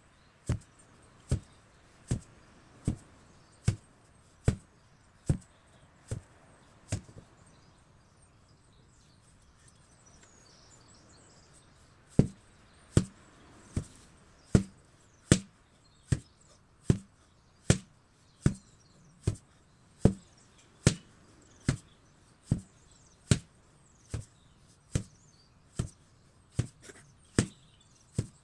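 An 8 kg sledgehammer striking over and over at a steady pace, a bit more than one blow a second. The blows stop for about five seconds partway through, then start again at the same rate.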